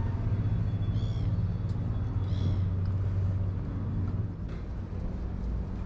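Boat engine running steadily with a low hum that fades after about four seconds. Two short high cries sound over it, about one and two and a half seconds in.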